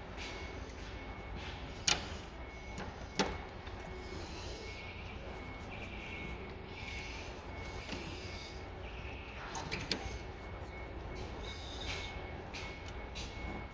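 Steady low workshop hum with sharp metallic clinks of tools and engine parts being handled: two about two and three seconds in, and another near ten seconds.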